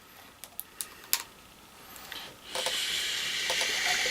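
A few light clicks, then vodka poured from a bottle into a glass of ice, starting about two and a half seconds in as a steady rushing pour.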